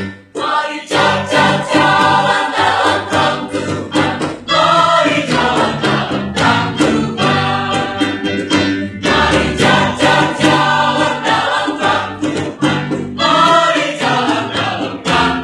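A mixed choir of male and female voices singing in parts, in phrases broken by short pauses.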